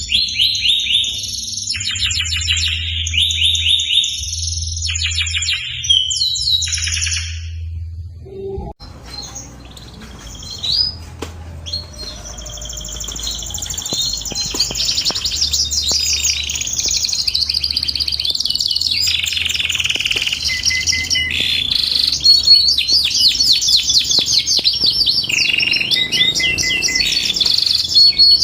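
Domestic canary singing: long, rapid trills and warbled phrases, with a break about eight seconds in where a denser, continuous stretch of song takes over.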